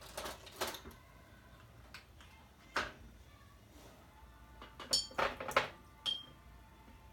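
Pens and markers clicking and clattering against each other in a desk tray as a hand rummages among them: a handful of short clatters, the busiest around five seconds in, the last with a brief ring.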